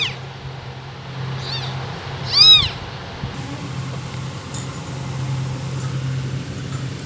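Kitten meowing: two high-pitched meows that rise and fall, a faint one about a second and a half in and a louder one about a second later, over a steady low hum.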